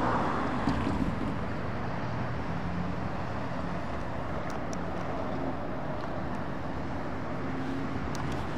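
Road traffic running past on the street, with wind noise on the microphone.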